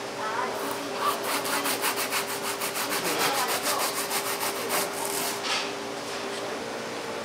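Rapid back-and-forth scraping strokes from work on the tuna, about five a second, stopping about 5.5 seconds in. A steady machine hum runs under them.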